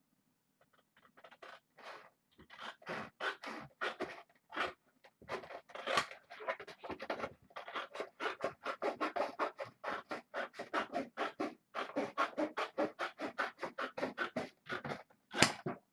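Quick scratching and rubbing strokes, several a second, from posterboard being worked by hand, with one louder stroke near the end.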